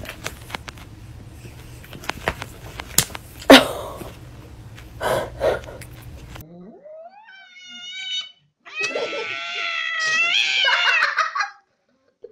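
A tabby house cat yowling at another cat outside the window: a rising call, then one long wavering yowl of about three seconds, a territorial caterwaul. Before it, soft taps and rustling with a couple of short louder sounds as sphynx cats paw about.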